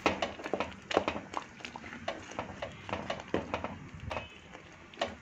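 A spatula stirring thick mango curry in a pan, mixing in masala powder: irregular knocks and scrapes of the spatula against the pan, a few a second, thinning out about four seconds in.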